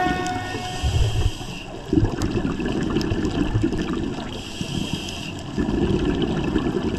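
Muffled rushing and gurgling of water picked up by an underwater camera on a scuba dive. It surges and eases unevenly, with lulls about two seconds in and again around five seconds.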